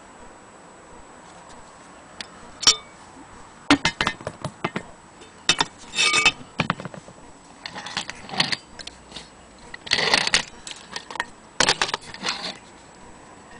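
Metallic and glassy clinks and taps from a Koma anniversary dome clock being handled, in irregular clusters, some with a short ring.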